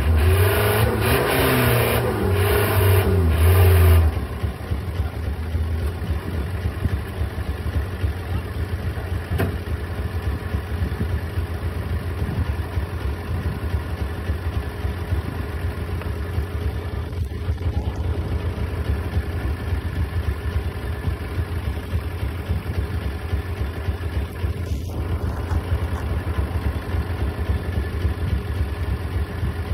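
Dump truck's diesel engine revving for the first few seconds, then settling to a steady low idle.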